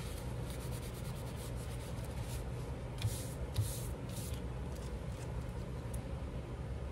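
Paper being handled and rubbed by hand, soft scratchy rustling with two brief louder rustles about three seconds in.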